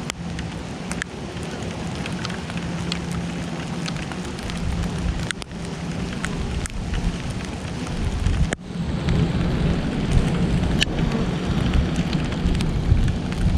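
Steady rain with individual drops tapping sharply, and a steady buzz of honeybees flying at the hive underneath it. About two-thirds of the way in, a low rumble swells and stays.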